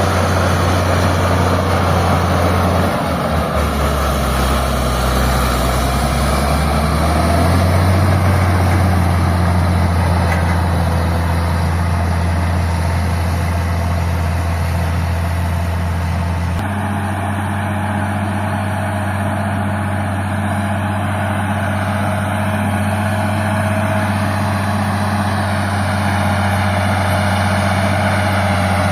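Old Caterpillar D6 crawler tractor's diesel engine running with a deep rumble. About three seconds in its speed drops for a few seconds, then picks back up, and past the middle the tone shifts suddenly and then holds steady.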